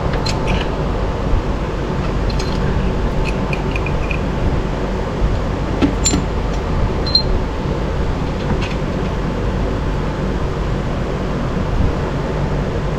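Steady background hum with a few light clicks and ticks of hand tools while an oxygen sensor is being unscrewed.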